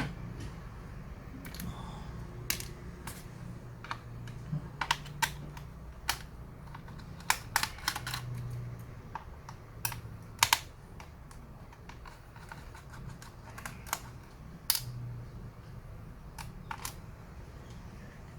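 Scattered small, sharp clicks and taps of screws and tools being handled during disassembly of a ThinkPad T410s laptop. The clicks come at irregular intervals, about a dozen in all, over a faint low hum.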